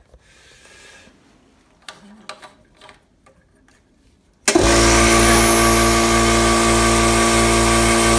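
A few faint handling clicks, then a portable electric air compressor switches on abruptly about halfway through and runs loud and steady with a droning hum.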